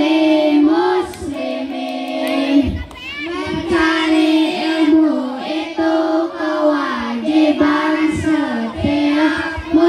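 A group of boys singing together in unison into handheld microphones, one sustained melody line with held notes and short breaths between phrases.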